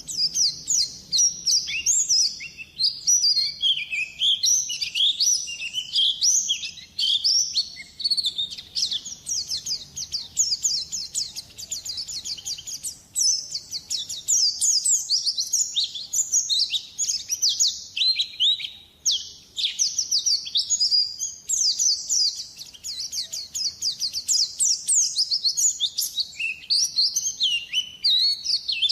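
White-eye (pleci) singing a long, fast twittering song of high, quick down-slurred notes, pausing only briefly twice.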